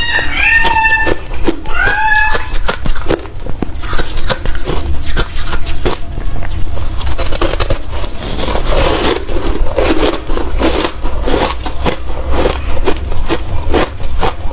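Hard refrozen crushed ice being chewed: dense, irregular crunching throughout. A cat meows a few short times in the first two seconds or so.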